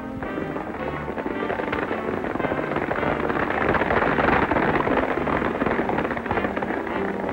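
Galloping horse hoofbeats, a fast dense clatter, under the film's music score. Both swell loudest around the middle.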